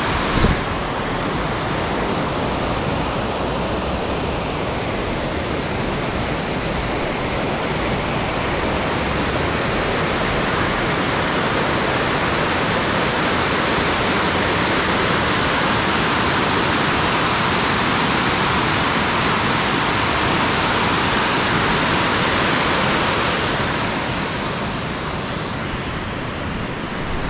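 Water pouring over a dam's overflow weir into a rocky channel: a steady rushing that grows louder around the middle and eases near the end.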